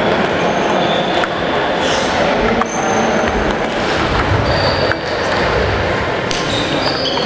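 Table tennis balls clicking irregularly off bats and tables, several tables in play at once, over a steady hubbub in a large sports hall.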